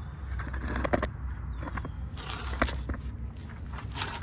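Brake caliper being worked off the rotor: scattered metal clicks and scrapes, the sharpest about a second in and again past the middle, over a steady low hum.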